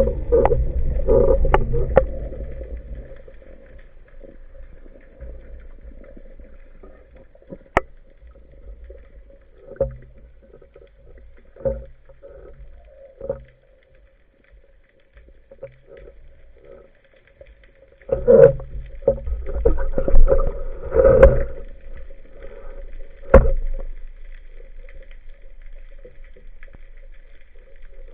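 Small boat on the water: a steady motor hum, with scattered knocks and stretches of low rumbling and splashing near the start and again about two thirds of the way in.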